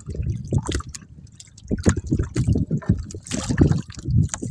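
Sea water sloshing and splashing against the boat and its outrigger float as a wet gill net is pulled up and handled in the water, in uneven splashes and dribbles, busiest in the second half.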